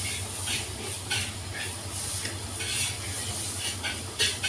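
A ladle stirring a large metal pot of simmering mung bean porridge, giving irregular short scraping strokes against the pot, over a steady low hum.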